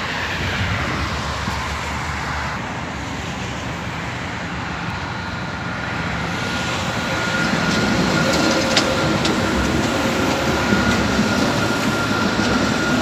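Dubai Tram (an Alstom Citadis light-rail car) pulling in alongside the platform: a running rumble that grows louder about halfway through as it comes alongside, with a steady high whine and a few sharp clicks.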